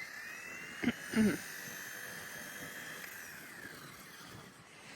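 The small electric motors of a WLtoys K110S micro RC helicopter whining as they spool up. The high whine rises, holds, then slowly drops and fades after about three seconds.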